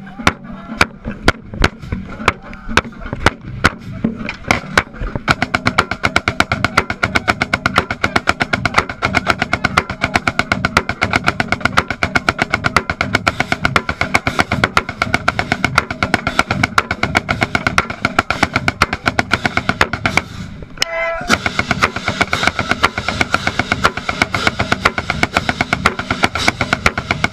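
Marching snare drum played up close, with a marching band behind it: evenly spaced single strokes at first, then fast continuous sticking from about five seconds in, a brief break about three-quarters of the way through, then the fast playing resumes.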